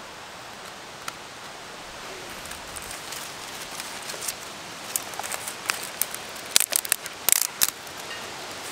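Small campfire of wood shavings and tinder catching and crackling, the pops coming thicker from about three seconds in and sharpest near the end, over a steady hiss.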